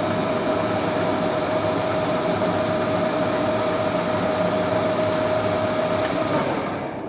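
Standard Modern 1660 engine lathe running steadily with its spindle at 640 rpm in high range, a constant gear whine over the drive's running noise. Near the end it is shut off and quickly runs down to a stop.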